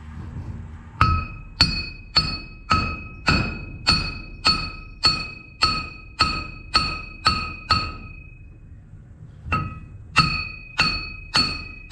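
Hammer blows driving a part onto the stalk roll shaft of a John Deere 444 corn head, metal ringing with a clear tone after each strike. The blows come steadily about two a second, stop for about a second and a half, then resume.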